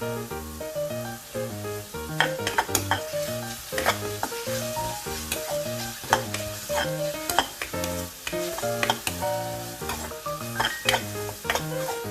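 Onion masala sizzling in hot oil in a pan as a spoon stirs it, with sharp clicks and scrapes of the spoon against the pan, over background music with a bass line.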